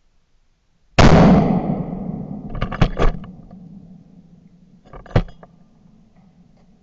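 A single shotgun shot about a second in, loud and sudden, its report dying away over the next second or so. It is followed by a few sharp knocks close together around three seconds in and one more about five seconds in.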